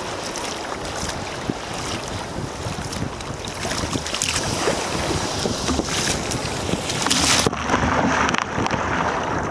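Wind buffeting the microphone over the wash of choppy sea against a kayak's bow. About seven and a half seconds in, the bow drives into a wave and water breaks over the foredeck and camera, and the sound turns suddenly dull as the high end drops away.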